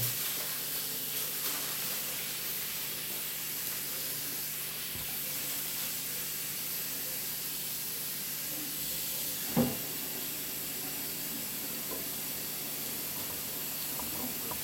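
Steady background hiss with a faint low hum, and one sharp knock about two-thirds of the way through.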